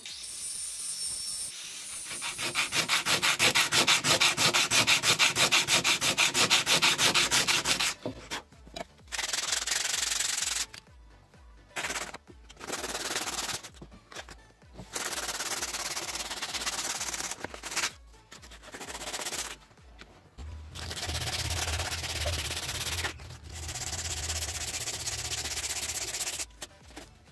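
P100 sandpaper rubbed by hand along a wooden knife handle. Quick, even back-and-forth strokes for several seconds, then bursts of sanding with short pauses between them.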